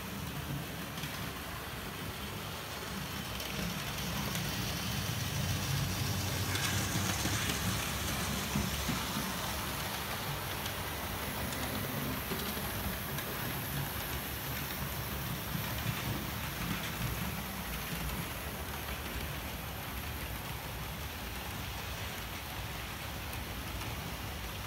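OO gauge model trains, Gresley A4 locomotives hauling coaches, running on the layout's track: a steady rumble of motors and wheels on rail. It grows louder from about four seconds in and eases off gradually after about ten seconds.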